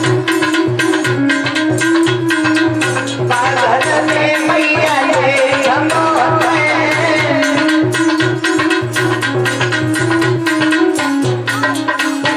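Indian folk dance music with a fast, steady hand-drum beat under a wavering melody line.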